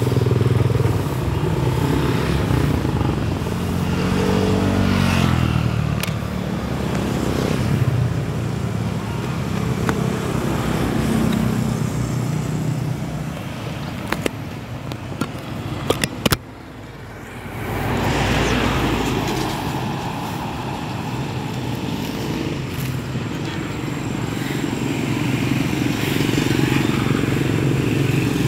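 Small motorcycle and motorcycle-tricycle engines running as they pass along the street, with one rising and then falling in pitch about four seconds in as it goes by. A few sharp clicks just past the middle, then a brief lull before the traffic noise returns.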